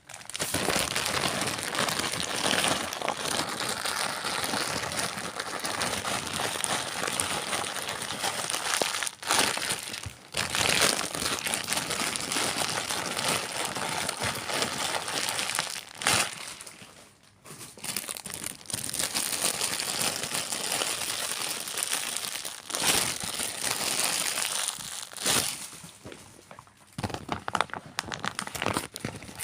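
Plastic bags being crumpled: a dense, continuous crinkling and crackling that breaks off briefly a few times, growing sparser and quieter near the end.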